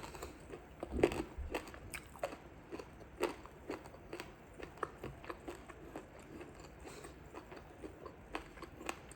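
Close-up chewing and crunching on a chicken bone: irregular crisp crunches, several a second, the loudest about a second in.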